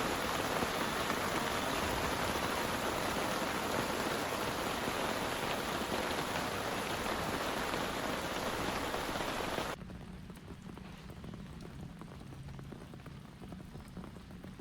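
Heavy rain pouring in a dense, steady hiss. About ten seconds in it cuts off suddenly to a much quieter patter of scattered drops.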